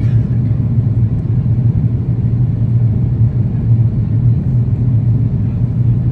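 Steady cabin noise of a jet airliner in descent, heard from a window seat: a constant low rumble of engines and airflow with a strong low hum.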